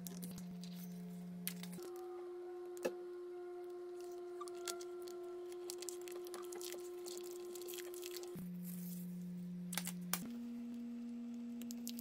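Soft background music of long, steady, pure tones that step to a new pitch every few seconds, with a few faint clicks.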